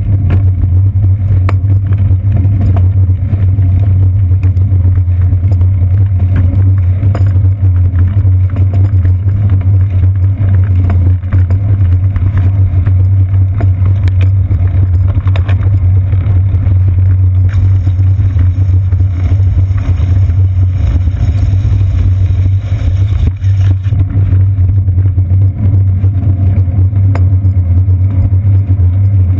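Loud, steady low rumble of a bicycle riding over wet pavement, the road vibration carried up the seat post into the mounted GoPro Hero 2 camera.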